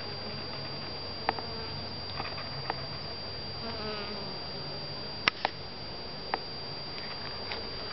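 Honeybees buzzing while foraging on flowers, a steady hum that swells briefly near the middle, with a few short sharp clicks.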